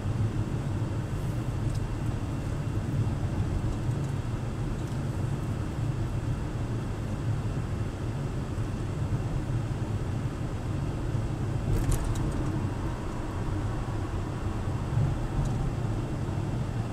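Steady low rumble of a car driving along a paved street, heard inside the car's cabin, with one short click about twelve seconds in.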